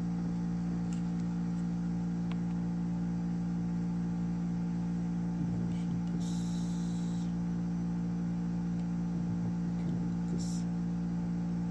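A steady electrical hum holding a constant pitch, with a brief crinkling rustle about six seconds in and a shorter one near the end.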